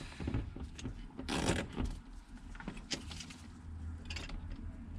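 Handling noises as a fuel line is worked back onto a fuel pump assembly: a scraping rustle about a second and a half in, then a few short clicks.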